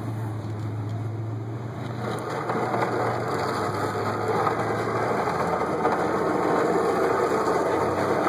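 Car engine running with a low steady hum, joined from about two seconds in by an even rush of noise that grows steadily louder.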